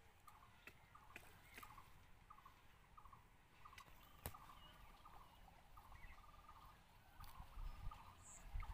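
Near silence: faint outdoor ambience with a run of faint short calls, a few a second, and a few light clicks.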